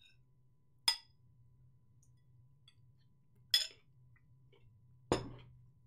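Three short, sharp knocks or clinks of small objects being handled, well spaced, the last one heavier with a short ringing tail, over a faint low hum.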